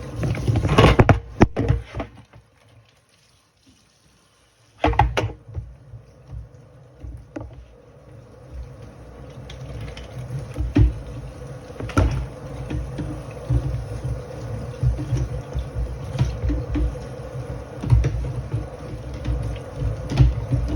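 Plastic vacuum dust-cup and cyclone parts knocking and clattering. After a couple of seconds of quiet, tap water runs and splashes in a sink as the parts are rinsed, with frequent small knocks.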